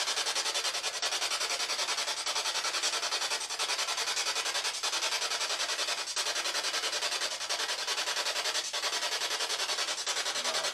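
Spirit box sweeping through radio frequencies: harsh static hiss chopped into rapid, even pulses.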